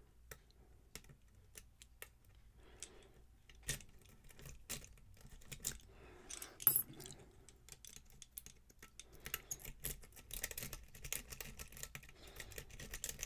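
Metal lock pick and tension wrench working the pins inside a lock cylinder: small irregular clicks and scrapes, sparse at first and coming thicker in the last few seconds, as the pins are raised and set one by one.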